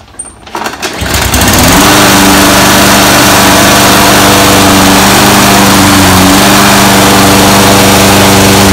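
Toro Personal Pace 22 lawn mower engine pull-started: it catches about a second in, quickly comes up to speed, then runs loud and steady.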